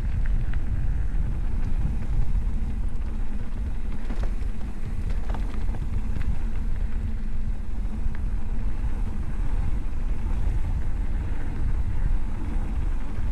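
Steady low rumble with a few faint clicks: wind and motion noise on the microphone.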